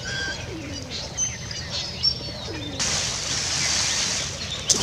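Outdoor bird sounds: small birds chirping and rock pigeons giving low falling coos. About three seconds in, a rustling hiss lasts nearly two seconds.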